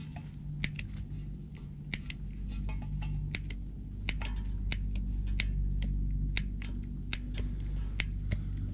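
Piezo igniter clicking over and over, about once every two-thirds of a second, as a gas ceramic tent heater is being lit, with a low steady hum underneath.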